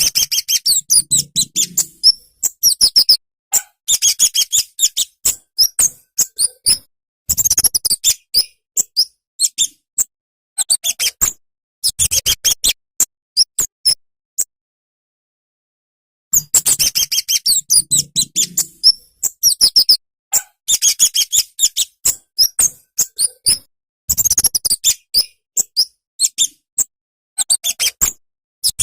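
Kemade, a flowerpecker known as burung cabe-cabean, singing: rapid runs of high, thin chirps in phrases a few seconds long, with a silent pause of about two seconds midway.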